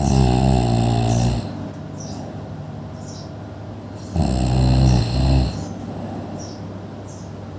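Loud snoring: two long snores about four seconds apart, each lasting a little over a second, with short faint high whistles in the quieter stretch between them.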